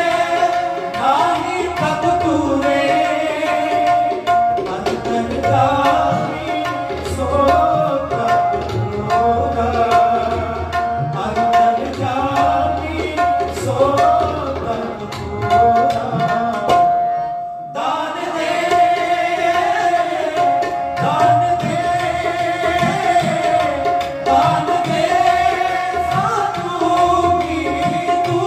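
Sikh shabad kirtan: male ragis singing to harmonium, with tabla drumming underneath and a steady held harmonium note. The music breaks off for a moment a little past the halfway point, then resumes.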